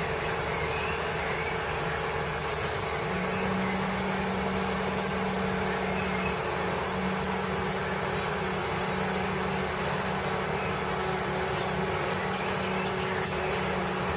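Diesel engine of a mobile crane running steadily at constant speed while it holds a load, a steady low hum over engine noise that firms up a few seconds in.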